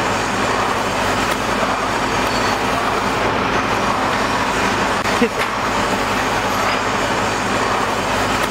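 Steady mechanical drone of running machinery, with a low hum beneath it; a short squeak sounds about five seconds in.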